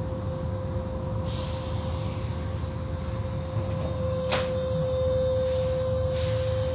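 Automatic car wash machinery running: a steady low rumble under a constant hum, with a hiss coming on about a second in and again near the end, and a sharp click a little after four seconds.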